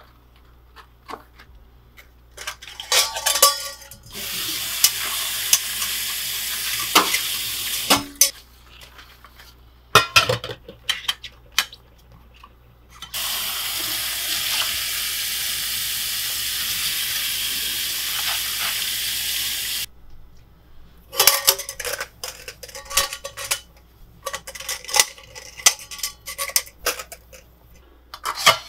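Sponge scrubbing a stainless-steel sink, then a tap running into the sink in two steady spells of a few seconds each. Between and after them, stainless-steel nesting camping pots clink and clatter against each other and the sink as they are rinsed and stacked.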